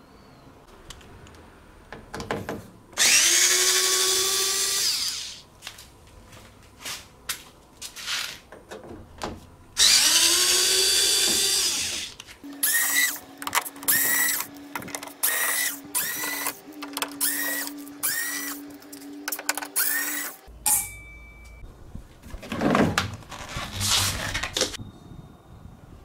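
Handheld electric screwdriver whirring as screws are driven out of a washing machine's plastic base. There are two long runs of about two seconds each that rise in pitch and then hold, followed by a quick string of short whirs.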